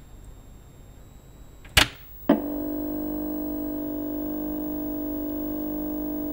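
Two sharp clicks about half a second apart, about two seconds in, then a steady electronic hum of several tones held together at one pitch without change.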